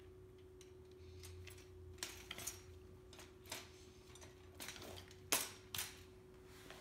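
Light clicks and metallic knocks from a black steel-wire Mainstays utility shopping cart being handled and set upright after its wheel is fitted, several scattered knocks with the loudest a little past five seconds in.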